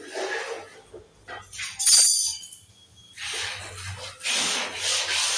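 Woodworking sounds: a sharp metallic clink about two seconds in, then two long rubbing strokes on wood, like hand sanding or rasping.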